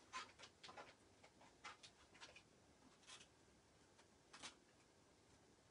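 Faint, irregular clicks and crackles of a sticky Chalk Couture transfer being peeled slowly off a box frame.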